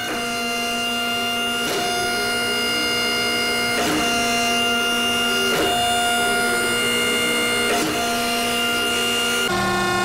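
Hydraulic pump of a 16-ton forging press running with a steady whine while the ram is cycled up and down. A short knock sounds about every two seconds as the control valve reverses the stroke, and the pitch shifts a little with each stroke. The ram is being run to work freshly applied way lube through the bronze slide.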